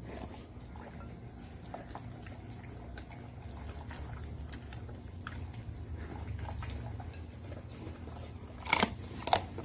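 A dog eating from a glass bowl of mixed food, with a run of many small chewing clicks and two sharp clicks about half a second apart near the end.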